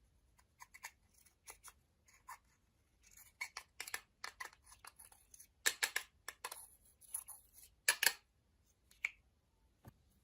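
Close-up sounds of makeup and slime being worked by hand: a run of short, crisp clicks and scratchy scrapes, busiest and loudest from about three to eight seconds in.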